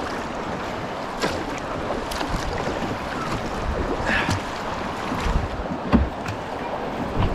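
Steady rush of river water around an open canoe nearing a weir, with wind on the microphone and a few low knocks in the second half.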